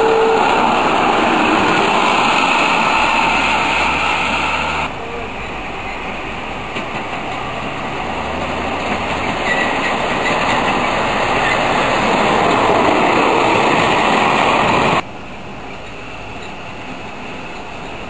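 Miniature ride-on passenger trains running along the track with a continuous rattling rumble of wheels on rail. The sound drops suddenly in level about five seconds in and again about fifteen seconds in.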